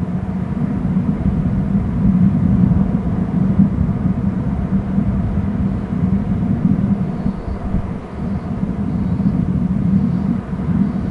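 Steady low rumble. In the second half, faint high chirps repeat about once a second.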